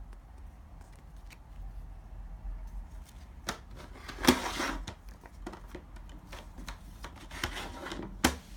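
CD case and its packaging handled by hand: scattered plastic clicks, a louder rustle about four seconds in and a sharp click near the end.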